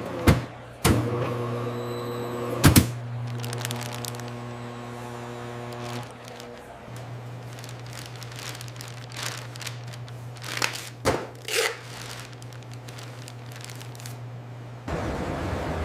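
A few sharp knocks, one just after the start and a quick double knock near three seconds, over a steady low hum with a held chord-like tone that stops about six seconds in; a cluster of further knocks comes around eleven seconds.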